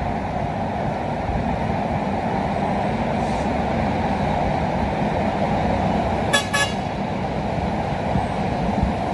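Loaded truck's engine running steadily with road noise as it comes down the bend, cut through about six seconds in by two short horn toots.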